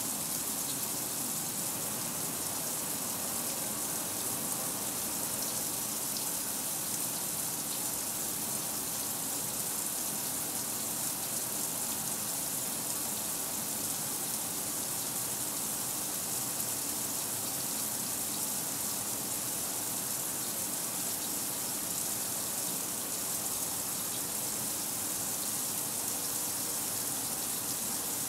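Kenmore 800 Series top-load washer with water running steadily into the tub, an even rushing noise that does not change.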